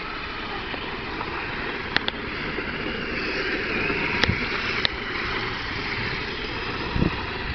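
Remote-control drift cars running and sliding on asphalt. A faint whine rises and falls in pitch near the middle, over a steady rumbling hiss, with a few sharp clicks.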